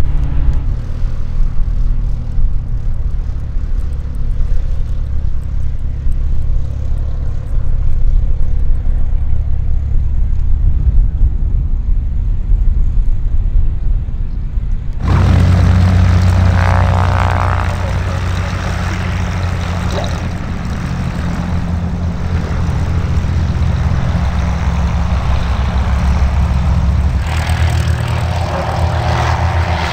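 Gusty low rumble of wind on the microphone, then, after a cut about halfway, the steady low drone of a Cessna O-2A Skymaster's two push-pull piston engines running on the runway.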